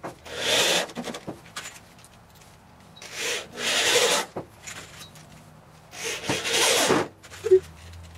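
Screws being driven into the wooden panels of a subwoofer box along a glued seam: three bursts about a second long, some three seconds apart, with a short click near the end.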